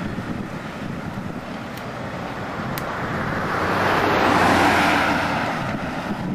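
Outdoor yard noise: a low, steady rumble under a rushing noise that swells up about three seconds in, peaks, and fades near the end.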